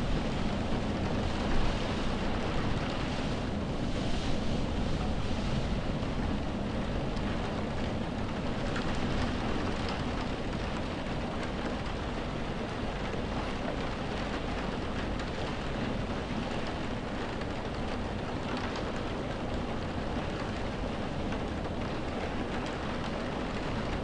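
Heavy rain with wind heard from indoors, countless raindrops hitting the windows. A steady, dense wash of noise with a low rumble underneath, a little louder and gustier in the first few seconds.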